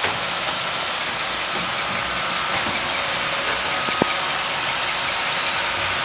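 Several Roomba robot vacuums running on test floors: a steady hiss of motors and brushes with a faint high whine, and a single sharp click about four seconds in.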